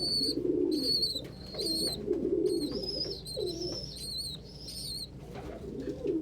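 Domestic pigeons cooing in low, rolling calls, with a steady run of short, high-pitched peeps over them, several a second.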